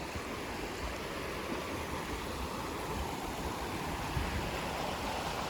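Steady rushing outdoor noise with irregular low rumbles, no distinct events.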